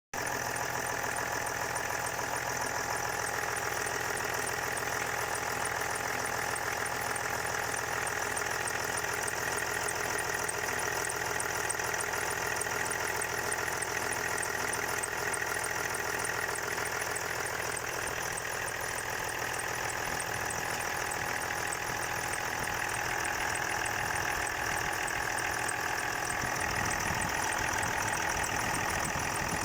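Land Rover Discovery 4 engine running at a steady idle, with a steady whistle over the engine sound.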